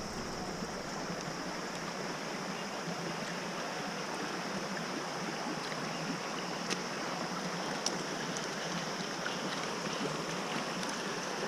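Creek water flowing, a steady rushing wash, with two faint clicks in the second half.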